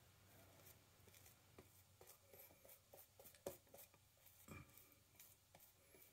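Faint, irregular scraping strokes of a safety razor shaving through lathered stubble, several short strokes in a row.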